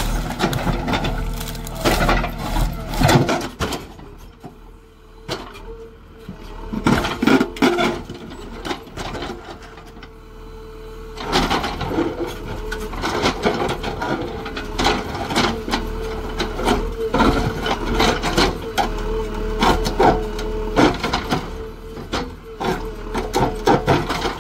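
JCB 3DX backhoe loader at work: a steady whine runs under many irregular knocks and scrapes, quieter for a few seconds between about four and eleven seconds in.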